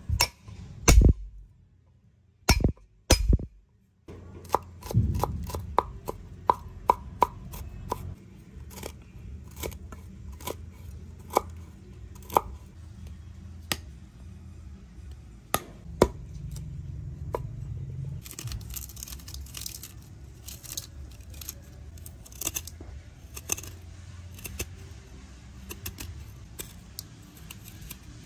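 Hand food-preparation sounds: irregular sharp clicks, clinks and knocks of utensils and hard items being handled. A few heavier knocks come in the first four seconds, and after that a steady low rumble runs under the clicking.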